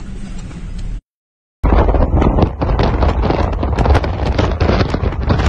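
Wind buffeting a phone microphone from a moving vehicle, loud, over a low road rumble. About a second in, the sound cuts to silence for half a second, then the buffeting comes in with quick irregular gusts.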